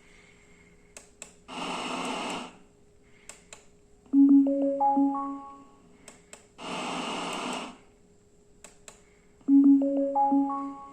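Small novelty sound box playing its electronic sounds twice over. Each time there is a second-long burst of rushing noise, then a short jingle of tones stepping upward, with faint clicks in between.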